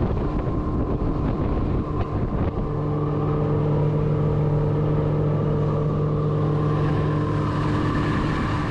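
Outboard motor of a fishing skiff running under way, picking up and settling into a steady pitch about two and a half seconds in, with a rush of wind and water noise over it.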